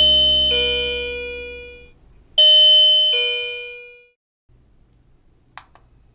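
Wireless doorbell receiver chiming a two-note ding-dong twice, each time a higher note followed by a lower one that rings out and fades. Two faint clicks near the end.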